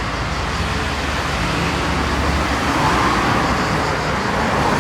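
Steady motor-vehicle noise, an engine running with a rushing hiss, swelling slightly about three seconds in.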